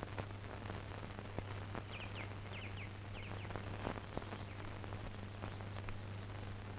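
Faint bird chirps: a quick run of short, falling chirps about two seconds in, over a steady low hum and hiss.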